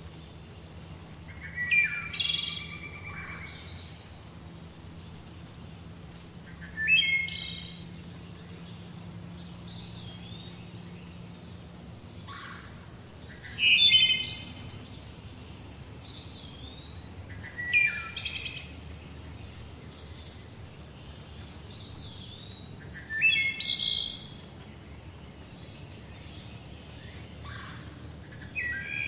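A songbird singing a short phrase about every five seconds, six times, with fainter chirps from other birds and a steady thin high-pitched tone throughout.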